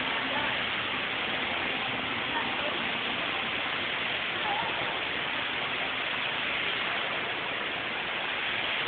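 Steady rushing hiss of fountain water jets spraying and splashing back into the pool, recorded on a phone, with faint voices in the audience.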